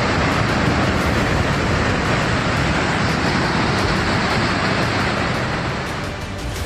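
Landslide: rock and muddy debris pouring down a mountainside as a steady, loud rushing noise, dipping slightly near the end.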